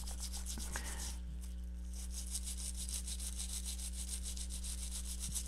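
A small brush scrubbing a circuit board wet with acetone nail polish remover to clear soldering flux: rapid, even back-and-forth rubbing strokes over a steady low hum.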